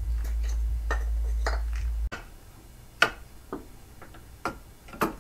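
Scattered clicks and light knocks from hands working on a Subaru boxer engine: unplugging the ignition coil connector, then handling a compression tester's gauge and hose. A steady low hum runs under the first two seconds and stops abruptly, with the loudest knock about three seconds in.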